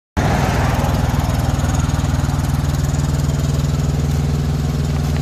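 Semi truck's diesel engine running steadily, cutting in abruptly just after the start.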